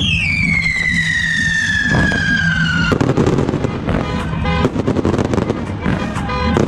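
Daytime coloured-smoke fireworks. A long falling whistle stops abruptly about three seconds in, and is followed by a rapid, irregular run of launch pops and cracks as the smoke comets go up, with music underneath.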